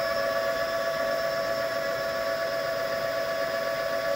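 Three-phase brushless motor, driven by a high-voltage BLDC controller, spinning a Ford F-150 truck alternator at about 1,100 rpm: a steady electric whine made of several held tones.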